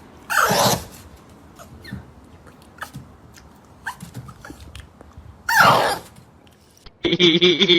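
A dog gives two short cries a few seconds apart, each falling in pitch, with faint clicks in between. Near the end a steady droning sound with several held tones cuts in.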